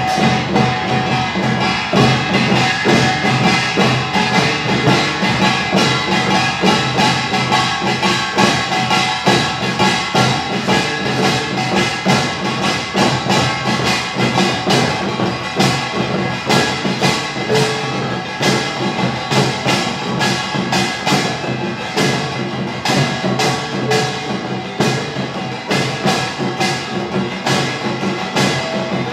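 Utdari samulnori ensemble playing: kkwaenggwari small gongs, jing gong, janggu hourglass drums and buk barrel drums beat out a fast, dense rhythm. Sharp metal and drum strikes run on without pause over the ringing of the gongs.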